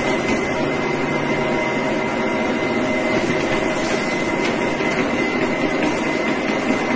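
Walking-pad treadmill running at a steady speed: a constant motor hum with a fixed whine over the belt's even rumble.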